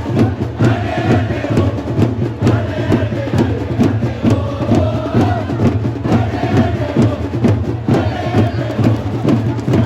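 A crowd of football supporters singing a chant together over a steady drum beat.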